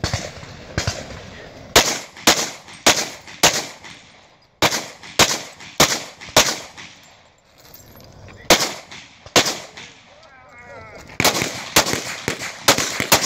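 Pistol shots fired in quick strings of two to six, with short pauses between strings as the shooter moves between shooting positions. A faster run of about eight shots comes near the end.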